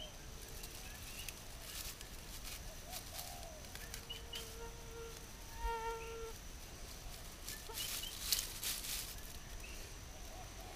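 Dry fibre tinder rustling and crackling as it is pulled apart and packed into a fire lay of dry sticks, loudest about eight seconds in. Faint bird calls sound in the background, including a short pitched call about six seconds in, over a steady high insect hum.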